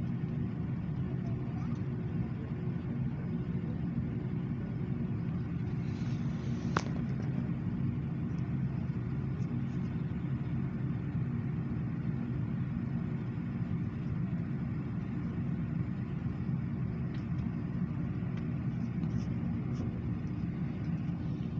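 Steady cabin noise inside an Airbus A330, an even low drone with a few faint steady hums. A single sharp click sounds about seven seconds in.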